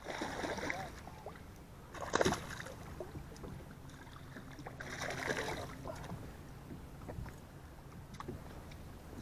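A hooked bass splashing and thrashing at the water's surface beside the boat, in several bursts, the loudest and sharpest about two seconds in.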